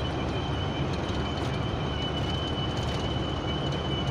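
Inside a moving truck's cab: steady engine and road rumble with a thin, steady high-pitched whistle in the cab running throughout.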